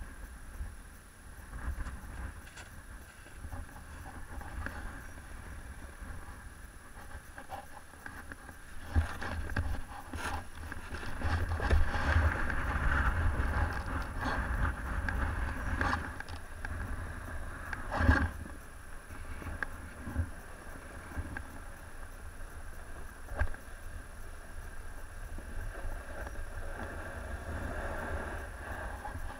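Snowboard sliding and scraping over groomed snow, heard from a chest-mounted action camera, with wind buffeting the microphone. It grows louder for a few seconds partway through, and a few sharp knocks stand out. Near the start there are small clicks as the binding straps are done up.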